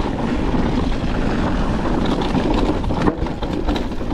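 Niner WFO e9 mountain bike riding fast down a dirt trail: a steady rush of wind and tyre noise with frequent small knocks and rattles from the bike.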